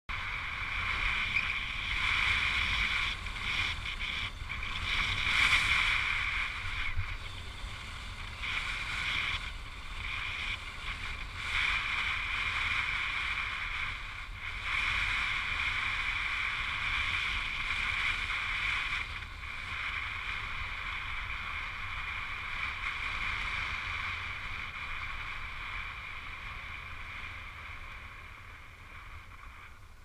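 Skis sliding over snow: a continuous hiss that swells and eases with the turns, over low wind rumble on the microphone. It fades over the last few seconds.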